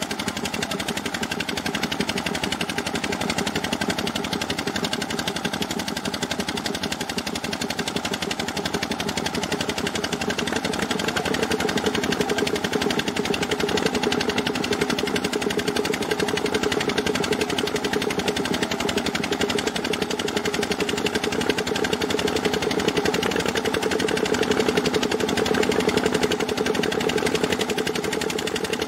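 An engine running steadily with a rapid knocking beat, its hum growing stronger about a third of the way in, over the rushing and splashing of water and wet gravel pouring out of a dump truck bed.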